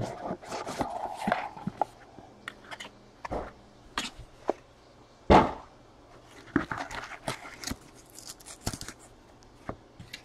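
Trading card packs and wrappers being handled and torn open: scattered rustles, crinkles and sharp clicks.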